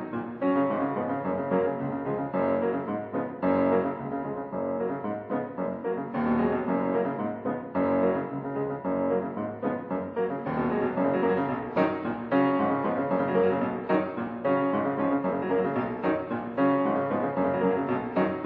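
Piano music, a steady run of notes with no break.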